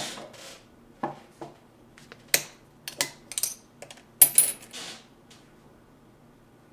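Scattered light clicks and rustles of hands handling a stitched leather sample and the presser feet of a Consew 229 post-bed sewing machine, which is not running. The loudest clicks come a little past four seconds in.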